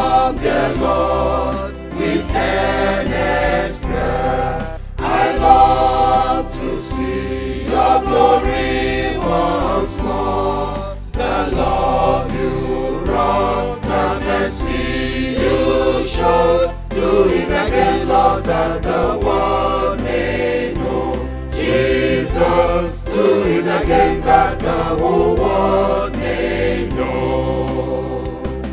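A large mixed choir singing a gospel hymn in unison, with many men's and women's voices together. A steady low backing runs underneath, changing note every few seconds.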